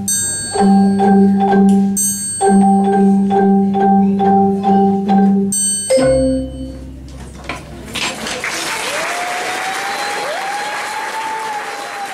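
A school ensemble of Orff xylophones plays repeated low mallet notes, about three strokes a second, with a short break about two seconds in. About six seconds in they strike a final note that rings out. About two seconds later audience applause starts.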